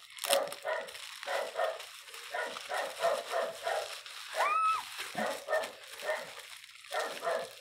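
Dogs barking in another room, a rapid run of repeated barks about three a second with a few brief pauses, and one longer, higher cry about four and a half seconds in.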